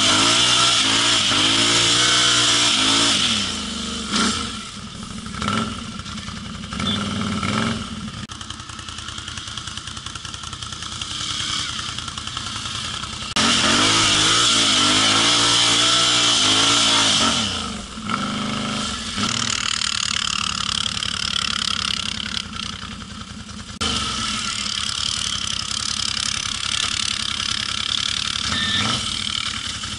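Can-Am ATV engine pulling through sand. Near the start and again about halfway through it revs hard, rising and falling in pitch, and it runs at lower throttle in between, with a few knocks early on.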